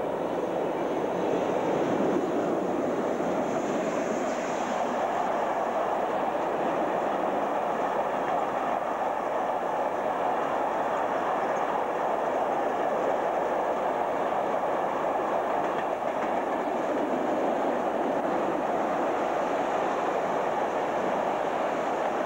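A freight train of high-sided covered sliding-wall wagons passing close by, with a steady noise of steel wheels running on the rails.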